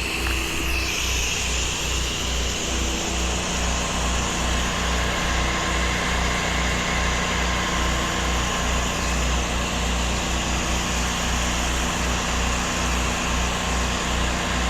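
Gas-engine 8 GPM pressure washer running under load with a steady low throb, under the even hiss of water spraying from the wand, which grows about a second in.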